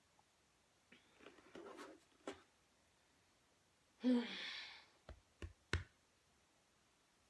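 A person gulping milk straight from a plastic gallon jug: soft swallowing sounds, a louder breathy burst about four seconds in, then three quick gulps in a row.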